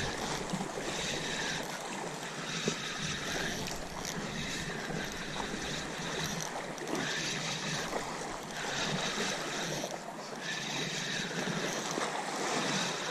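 Sea waves washing against shore rocks, with wind on the microphone, while a spinning reel is cranked to bring in a hooked fish.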